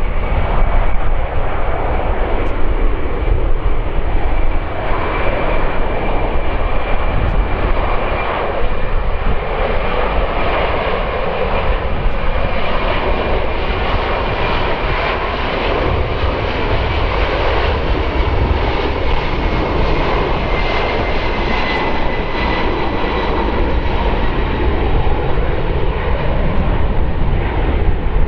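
Jet engine noise from a Boeing 767-300ER's twin GE CF6-80C2 turbofans: a steady, loud rush with a thin high whine on top that dips slightly in pitch about 20 seconds in.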